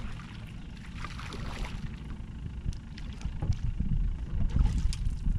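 A hooked speckled trout splashing at the water's surface as it is reeled in. Wind buffets the microphone, growing louder over the last couple of seconds, and a few light clicks are heard.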